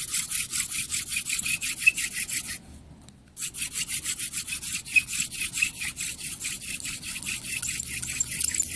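Hand-drill spindle of mullein stalk spun between the palms in a cedar fireboard, rasping in quick back-and-forth strokes, about five or six a second, with a brief pause about a third of the way through. The slow start heats the board before dust and smoke come.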